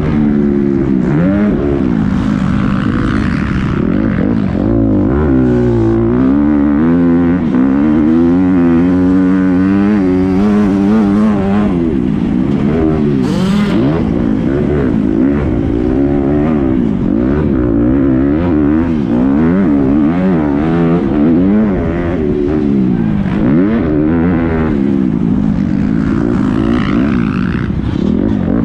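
Motocross dirt bike engine heard from on board, revving hard and dropping off again and again through shifts and turns, its pitch sweeping up and down continuously.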